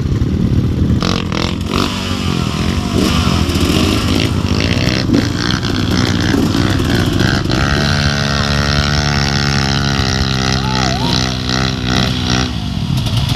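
Dirt bike engines running at low revs, with irregular throttle changes in the first half. From about eight seconds in, one engine holds a steady idle for a few seconds.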